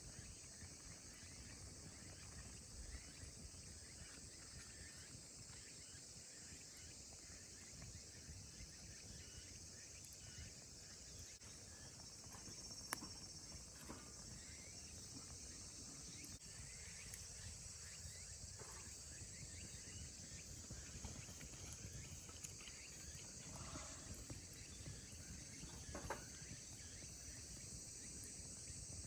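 Faint, steady high-pitched chorus of summer insects, with a few scattered short clicks and knocks.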